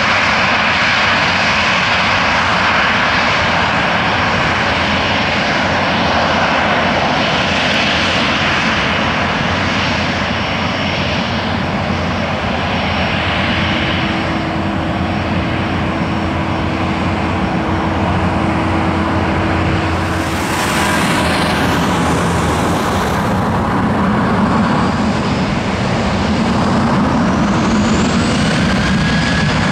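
Boeing 737-800's CFM56-7B turbofan engines running at taxi power: a steady jet whine over a low rumble, with the whine rising in pitch near the end.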